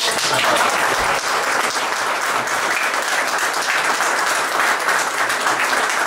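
Small audience applauding: dense, steady clapping from a few dozen hands.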